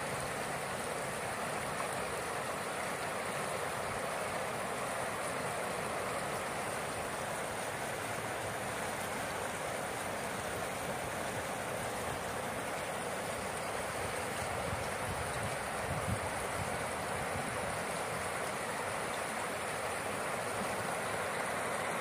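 Clear, fast-flowing river water rushing steadily over stones and shallow riffles.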